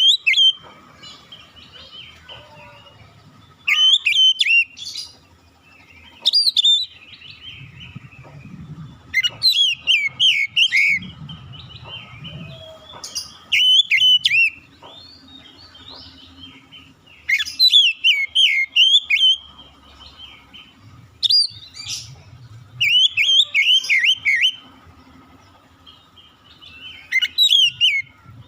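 Oriental magpie-robin (kacer) singing: short phrases of quick, sweeping high notes, repeated about every three to four seconds.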